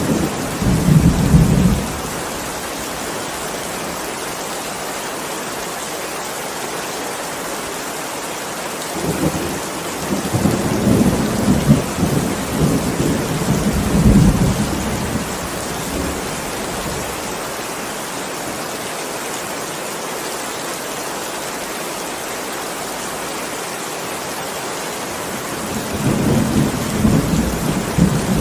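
Heavy rain falling steadily, with rolling thunder rumbles three times: at the start, for several seconds in the middle, and again near the end.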